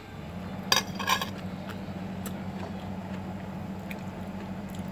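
Metal spoon clinking against a plate, two sharp clinks about a second in and a few light taps later, over a steady low hum.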